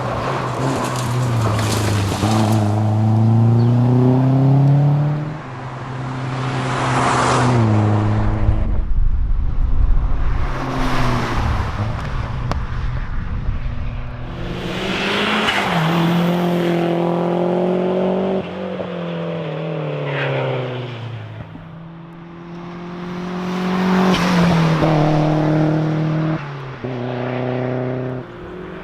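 Mazda MX-5 engine driven hard: the pitch climbs repeatedly under acceleration, drops suddenly at each gear change, and glides down on lifts and braking for corners.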